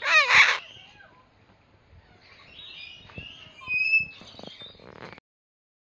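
Goffin's cockatoo giving one loud, harsh call about half a second long, then softer chirps and whistles a few seconds later. The sound cuts off suddenly about five seconds in.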